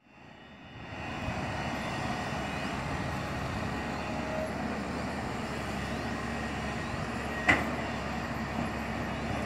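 Long-reach excavator's diesel engine running at a distance as a steady noise with a faint hum, with one sharp click about seven and a half seconds in.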